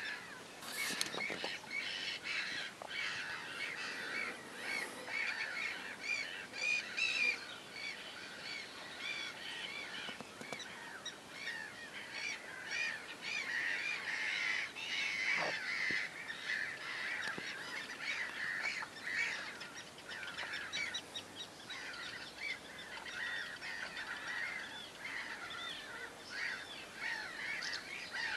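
Many birds calling at once: a dense, unbroken chorus of short high chirps and calls.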